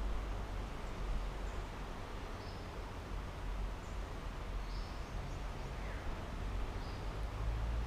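Outdoor ambience: a steady low rumble under an even hiss, with short faint high bird chirps every second or two.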